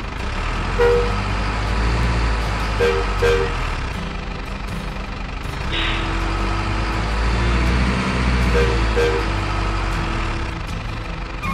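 Radio-controlled Mercedes-Benz Arocs model truck driving through muddy water, its diesel-style engine sound running steadily. Short paired toots come a few times, and a brief hiss comes about halfway through.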